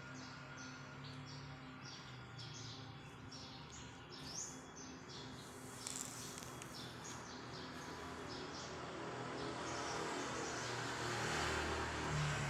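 A flock of small birds on a wire chirping, short high chirps repeating about three times a second. About two-thirds of the way through, a motor vehicle approaches, its noise and low engine hum growing louder to the end.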